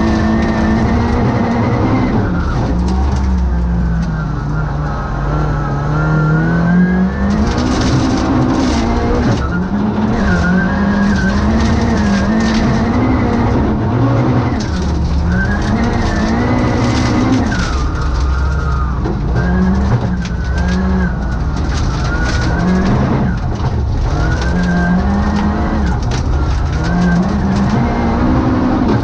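Volvo 940 rally car's engine heard from inside the cabin at full stage pace, revving up hard and dropping back again and again through gear changes and lifts. From about seven seconds in, gravel rattles and clatters against the underside of the car.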